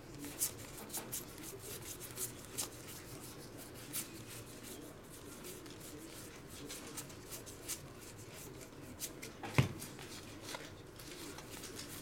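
A stack of Topps Star Wars trading cards being flicked through by hand, one card slid over the next, giving a run of small irregular clicks and slides. One louder click near the end.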